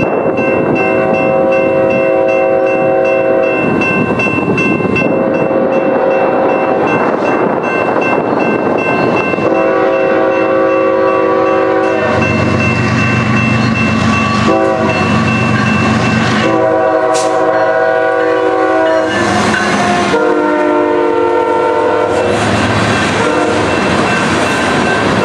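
Diesel freight locomotive's horn sounding a series of long and short blasts as the train approaches and passes a grade crossing. The locomotive's engine rumble joins about halfway through. Near the end, tank cars roll past with steel wheels clattering on the rails.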